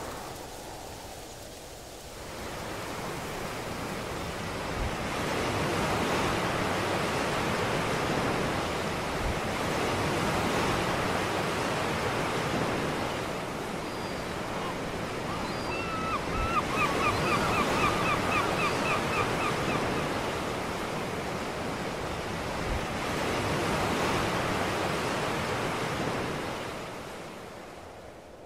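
Surf washing onto a sandy beach: a steady rush that swells and ebbs every few seconds. About halfway through comes a rapid trill of high chirps lasting a few seconds.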